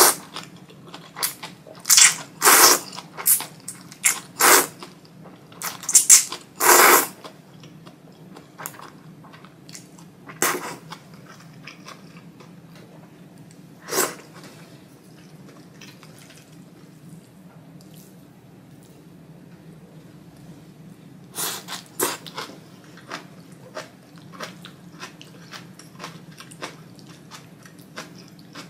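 Thick ramen noodles being slurped by mouth in a quick series of loud slurps over the first seven seconds, then single slurps at intervals, with soft wet chewing clicks in between and toward the end.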